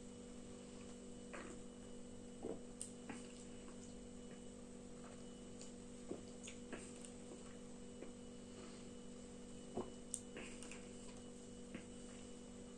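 Faint gulping and swallowing as a man drinks beer from a can: a scatter of soft clicks and small wet noises, the clearest two close together near the end, over a steady low electrical hum.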